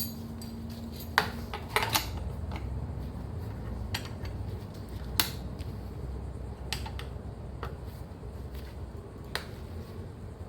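Scattered sharp metallic clicks and clinks of hand tools on metal, about seven in ten seconds, over a low steady hum, as work is done on an electric scooter to cure a vibration.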